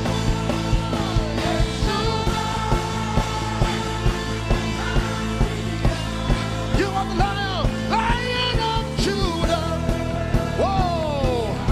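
Band music with a steady drum beat about twice a second under sustained chords, and a lead melody that slides up and down in pitch.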